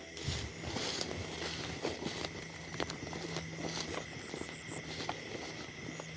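Footsteps crunching and rustling through dry vegetation, irregular crackling steps, with a faint steady hum and a few short high insect chirps about four seconds in.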